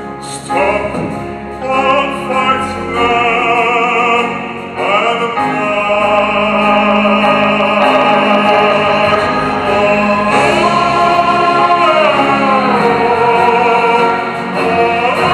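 A male singer performing a slow song at the microphone, with long held notes and vibrato, over live band accompaniment.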